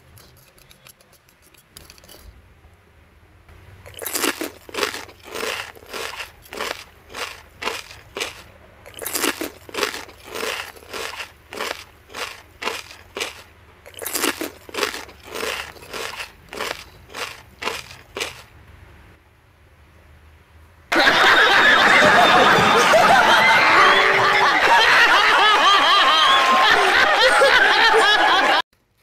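A utensil working gritty powder in a ceramic bowl, in rhythmic short strokes about two a second, in three runs. Then a loud burst of studio-audience laughter, which cuts off abruptly near the end.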